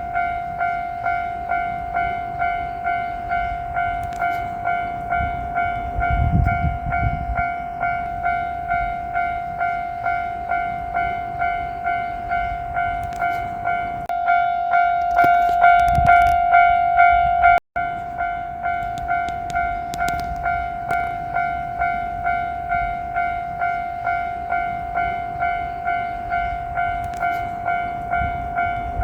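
Japanese railway level-crossing alarm ringing its repeating electronic bell tone, pulsing about one and a half times a second, the warning that a train is approaching. It grows louder about halfway through, then cuts out for an instant before carrying on.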